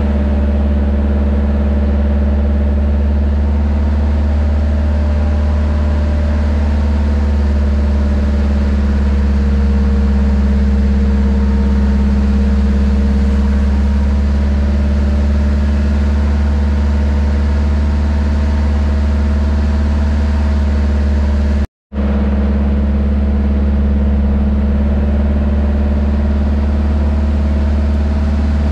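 Boat engine running steadily, a constant low drone with a steady hum above it, broken once by a brief gap of silence about three-quarters of the way through.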